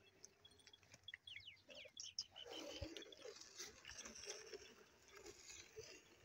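Faint farmyard sounds from a herd of goats, with short high chirps about a second in.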